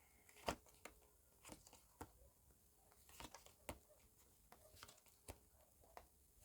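Near silence broken by about ten faint, irregular taps and clicks of tarot cards being handled and laid out.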